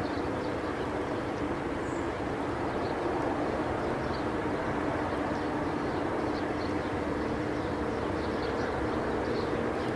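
Steady low, droning 'strange sound' of the kind reported from the sky: a rumbling noise with sustained tones held evenly throughout, made as a recreation of the Kiev strange sounds. Faint short high chirps come and go over it.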